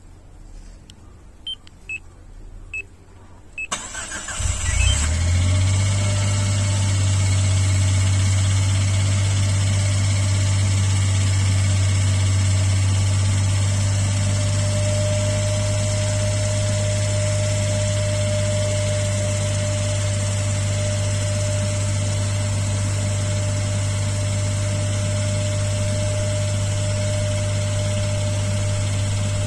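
Suzuki Every Wagon's three-cylinder 660 cc engine: a few clicks, then it cranks and starts about four seconds in and settles into a steady idle. It idles with an abnormal rattling, knocking noise, plainly a fault whose cause the owner has not found.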